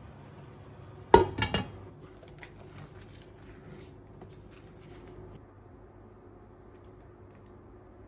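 A pan lid set down onto a deep cooking pan, landing with a sharp clatter of a few quick rattles about a second in. Faint light rustling and tapping follows for a few seconds.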